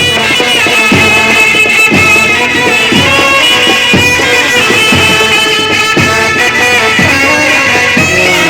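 An Indian band playing a Bollywood-style tune: a sustained melody line over a steady drum beat, with strong drum strokes about once a second.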